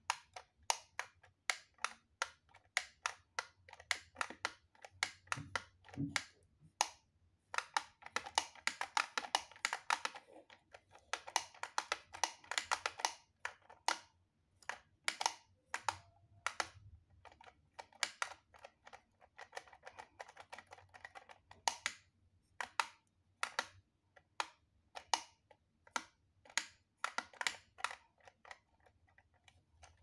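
Plastic clicking and rattling of a LEGO Technic joystick linkage being worked by hand, driving the orange levers of a LEGO remote. Single sharp clicks come every half second or so, broken by longer spells of rapid rattling about a quarter of the way in, again just after, and past the middle.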